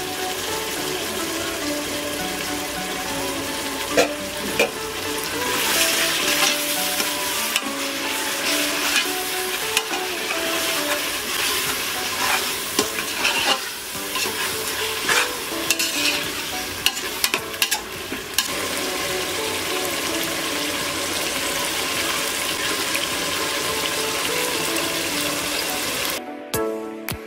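Onions, tomatoes and ginger-garlic paste sizzling in hot oil in a pressure cooker pot. A metal spatula scrapes and clacks against the pot, busiest from a few seconds in to about two-thirds through. Soft background music plays underneath, and the sound cuts off near the end.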